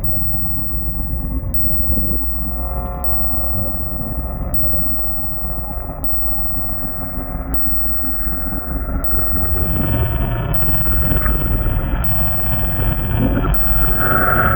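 Designed horror ambience: a continuous deep rumbling drone with faint sustained eerie tones layered over it, growing a little louder and brighter about ten seconds in.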